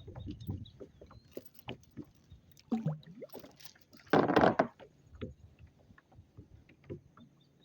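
Scattered light knocks and clatter of gear on a fishing kayak, then one short loud splash about four seconds in as the kayak is being anchored.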